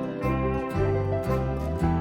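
Background music: plucked guitar over a steady bass line.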